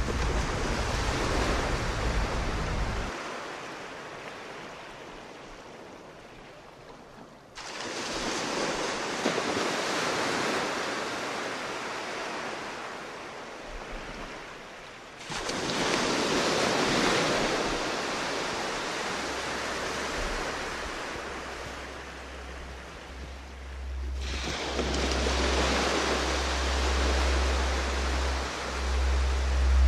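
Sea waves washing in and fading away in slow surges, a new wash about every eight seconds. A low rumble builds underneath toward the end.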